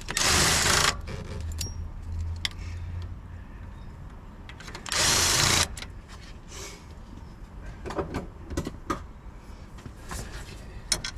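Cordless power tool spinning out the bolts of a clutch slave cylinder in two short bursts: about a second at the start and half a second around five seconds in. Scattered light knocks of metal parts follow.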